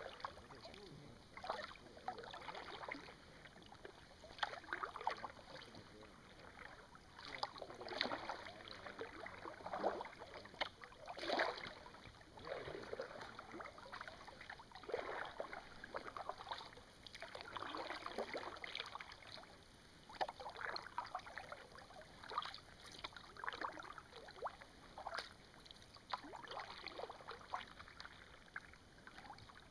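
Kayak paddle strokes in calm water: the blades dip, splash and drip about every one to two seconds as the kayak moves steadily along.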